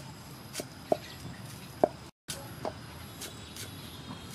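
Cleaver chopping green onions on a wooden cutting board: a few sharp knocks of the blade hitting the board at uneven intervals, the loudest just before two seconds in. The sound drops out for a moment about two seconds in, then fainter chops follow.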